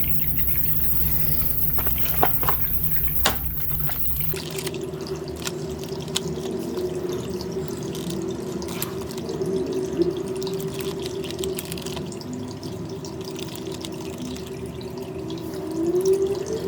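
Light clicks and taps of small plastic toy-car parts being handled and screwed together as a small motor is fixed onto the base, over a steady background hum.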